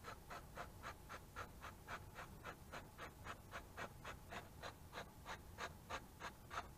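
Hand-twisted salt grinder grinding pink sea salt: a steady, even run of short grinding clicks, about four a second.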